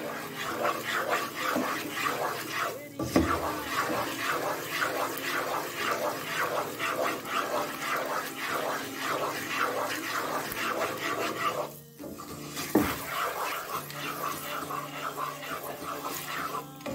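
Wooden spatula stirring wheat flour roasting in frothing ghee in a nonstick pan: a fast, rhythmic scraping against the pan with a light sizzle. The stirring stops briefly twice, about 3 seconds in and again about 12 seconds in.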